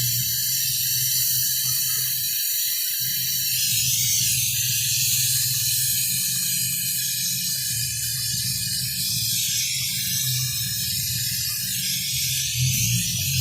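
Refrigeration compressor running with a steady low hum, under a steady hiss.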